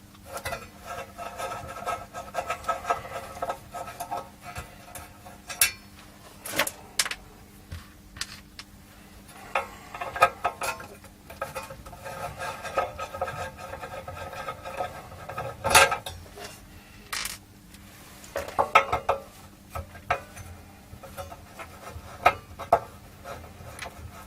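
Screwdriver working screws out of a metal equipment panel: two long stretches of grating metal-on-metal scraping, with sharp clinks and knocks from tools and screws between them.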